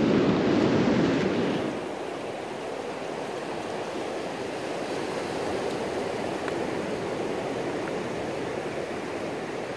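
Ocean surf washing onto a sandy beach, a steady rushing noise that is louder for the first second or two and then settles.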